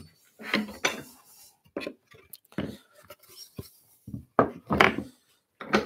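Wooden workpieces and hand tools being handled on a workbench: a series of about eight light knocks and clunks at irregular intervals as pieces are picked up, turned and set down.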